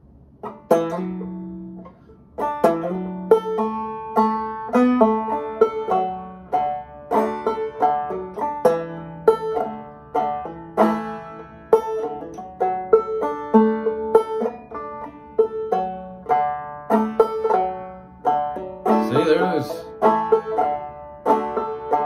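Open-back banjo played clawhammer style in Double-C tuning: a slow playthrough of a tune, with plucked notes and brushed strums in a steady rhythm. A brief rougher sound cuts in near the end.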